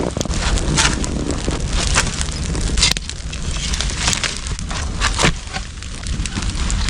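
Irregular sharp snaps and crackles, about one or two a second, over a steady low wind rumble on the microphone.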